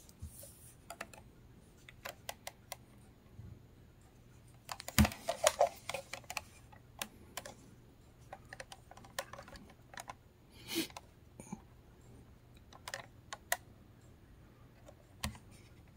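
Plastic clicking and knocking of a handheld Koss AM/FM cassette radio being handled and turned over, its case and belt clip clicking. A dense cluster of louder clatter comes about five seconds in.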